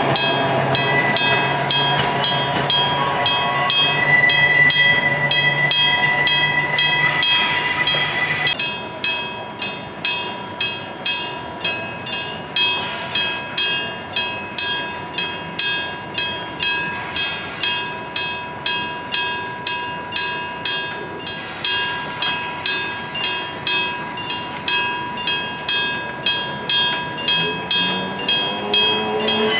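Electric level-crossing bell striking steadily, just under two strikes a second, each strike ringing on. For the first eight seconds or so a train's running sound, with a low hum and gliding motor tones, covers the bell, and a rising motor tone comes back near the end.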